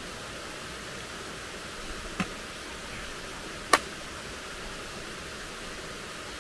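Steady rushing of a stream, with two sharp clicks a second and a half apart, the second louder.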